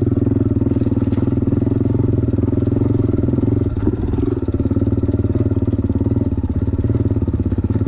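Single-cylinder dirt bike engine running under way at a steady speed, close to the microphone, easing off briefly about four seconds in.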